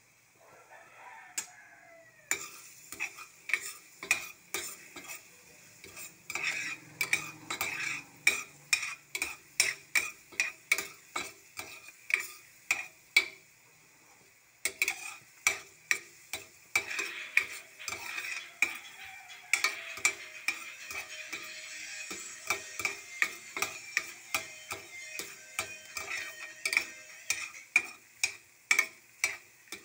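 Metal spoon stirring minced garlic in a stainless steel pan, clinking against the pan about twice a second, over a light sizzle of the garlic frying in oil. The stirring pauses briefly about halfway through.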